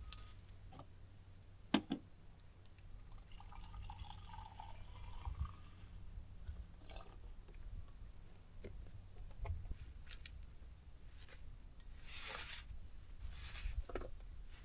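Camp breakfast being made: scattered light clicks and knocks of cups, utensils and containers, with a short pour of liquid about four seconds in and a brief rush of sound near the end.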